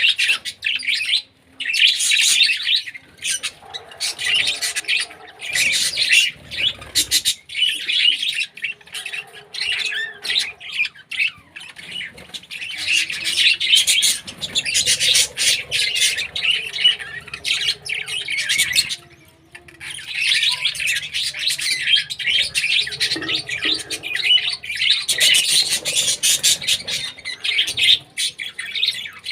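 Pet birds chirping and squawking in a dense, continuous chatter of rapid high calls, with short lulls about two seconds in and again about two-thirds of the way through.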